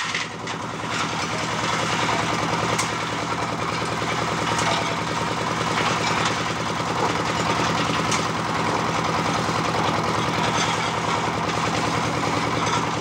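A portable engine-driven concrete mixer runs steadily with its drum turning. A few brief clatters come as headpans of gravel are tipped into the drum.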